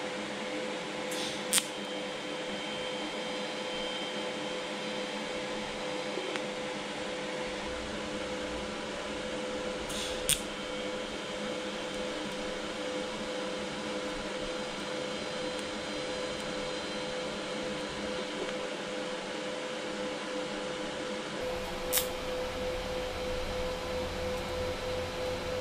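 TIG welding arc burning on a small steel bracket: a steady buzzing hum with hiss, broken by three sharp clicks spread through, near the start, about ten seconds in and about twenty-two seconds in.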